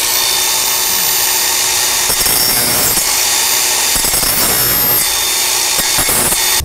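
Electric angle grinder running with a steady high whine, its abrasive disc grinding the steel end of a car's exhaust pipe. It stops near the end.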